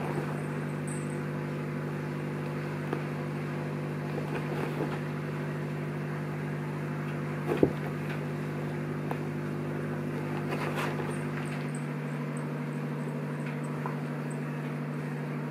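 A steady low hum runs throughout, with a few light taps and one sharper knock about seven and a half seconds in.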